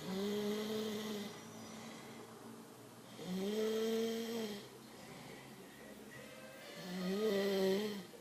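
A man snoring: three snores about three and a half seconds apart, each a steady pitched drone lasting a little over a second, with quieter breathing in between.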